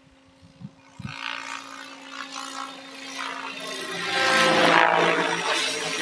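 Radio-controlled helicopter in flight: near quiet at first, then the whine of its motor and rotor growing louder, loudest about four to five seconds in.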